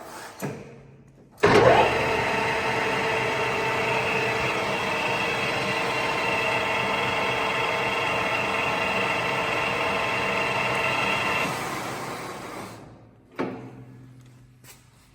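AYEL-TECH CD6241x1500 metal lathe starting up with a click and a sudden surge. Its spindle and headstock gears then run steadily for about ten seconds with a whine of several tones, before winding down. A single clunk follows near the end.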